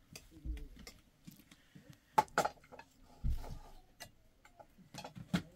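Scattered knocks and clicks at an uneven pace: two sharp knocks a little over two seconds in, a couple of dull thuds, and a few light clicks near the end.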